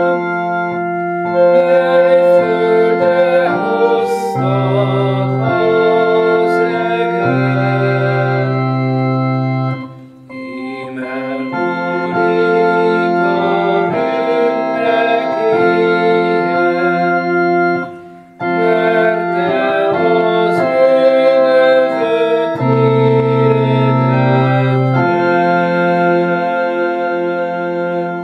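Organ and clarinet playing a slow piece together, the organ holding sustained chords under the clarinet's melody. The music breaks off briefly twice, about ten and eighteen seconds in, between phrases.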